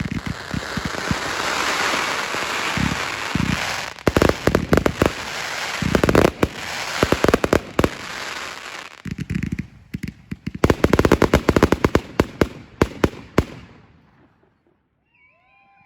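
Consumer fireworks battery display: rapid bangs and dense crackling over a rushing hiss, in several waves, dying away about 14 seconds in. A few faint whistles follow near the end.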